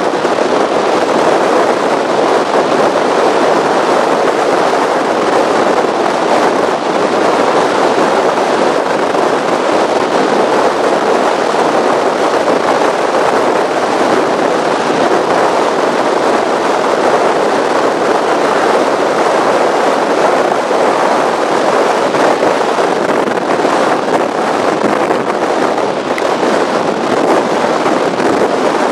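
Offshore powerboat running fast over choppy water: a steady loud rush of wind, water and engine noise at the bow, with no change in pitch.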